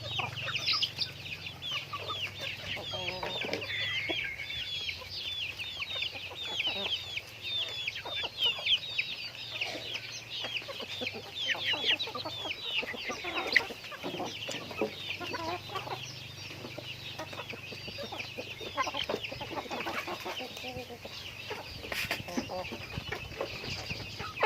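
Chickens calling: a steady stream of short, high, falling peeps, several a second, with lower clucks mixed in now and then.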